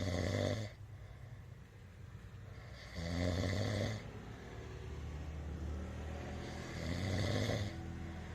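A sleeper snoring: three snores, each about a second long and roughly four seconds apart, with a fainter low sound between them.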